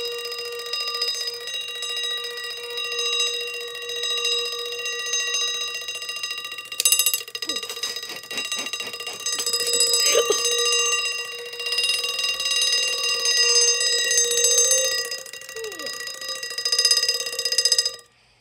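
Westclox Big Ben wind-up alarm clock (1964) ringing its bell alarm continuously. It makes a steady, rapid metallic ring, with some knocks from handling the clock about halfway through, and stops abruptly near the end.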